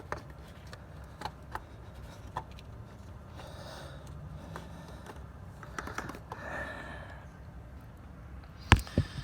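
Scattered small clicks and taps of hard plastic parts being handled and pressed together as the PCV oil separator housing is worked into place by hand. Near the end come two sharper, louder knocks close together.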